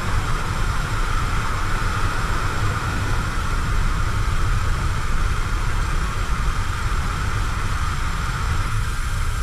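Distant city traffic heard through a window: a steady low rumble with a constant hiss and a faint held tone, no single event standing out.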